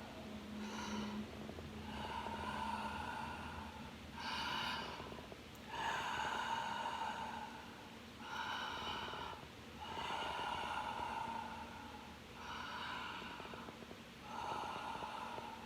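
A sleeping person breathing noisily through a stuffy, sniffly nose: about eight slow breaths in and out, each roughly a second long, carrying a thin whistling tone.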